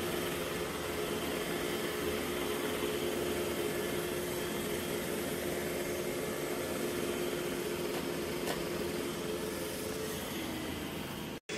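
Robot vacuum running: a steady motor and fan hum with a faint steady whine over an even hiss. It cuts off suddenly near the end.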